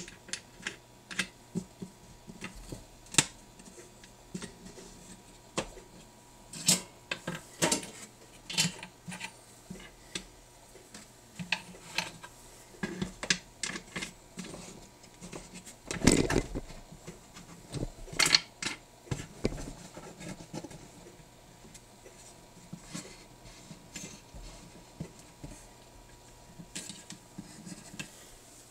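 Irregular clicks and light clatters of small hard objects being handled on a hard work surface, with the loudest clatters about 16 and 18 seconds in.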